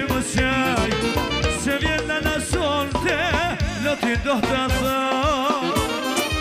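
Albanian folk band playing live: an ornamented lead melody with heavy, wavering vibrato over a steady drum beat and sustained bass.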